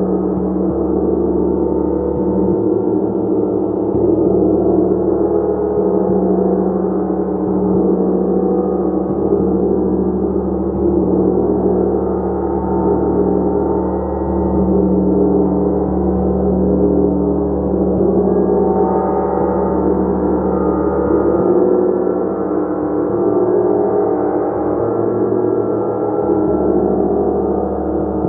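Gong played continuously, a dense sustained wash of many overlapping ringing tones that swells and shifts as it is kept going.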